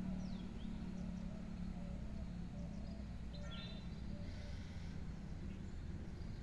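Steady low outdoor rumble with a few faint, short bird chirps: a falling chirp about half a second in and another about three and a half seconds in.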